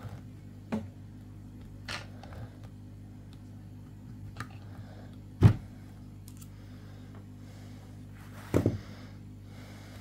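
Scattered clicks and knocks as a plastic-framed pistol and hand tools are handled on a table while its push pins are worked out. The loudest knock comes about halfway through, and a quick double knock comes near the end.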